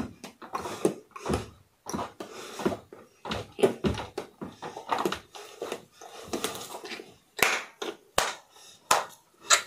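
Footfalls and scuffs of a child dancing on a room floor, with clothing rustle: an irregular run of soft thumps and a few sharp clicks near the end.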